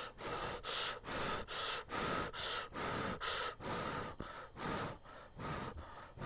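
Instant jjamppong ramen noodles being slurped from a bowl in a run of short, hissy sucks, about two a second.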